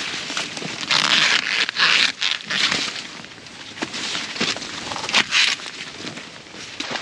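Sweet corn being picked by hand: dry stalks and leaves rustling and crackling in irregular bursts, with a few sharper snaps as ears are broken off.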